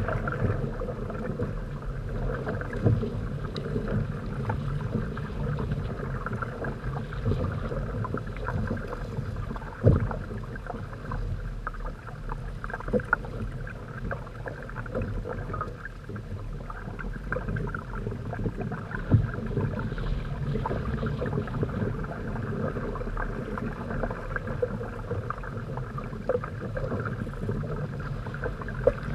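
Water rushing and splashing along the hulls of a Hobie Tandem Island trimaran under sail, a steady wash with a few sharp slaps scattered through it, the loudest about ten seconds in.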